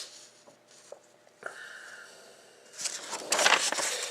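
Rustling and scraping from handling paper or cardboard, loud and irregular, starting about three seconds in after a quiet stretch with a few faint ticks.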